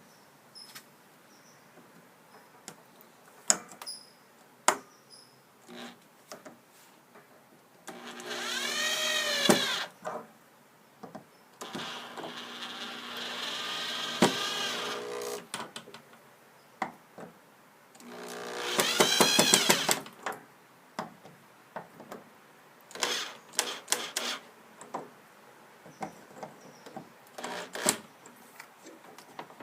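Power drill driving screws into a wooden gate in three runs. The first and last runs speed up then slow down, and the middle run is steadier and longer. Clicks and knocks of handling come between the runs.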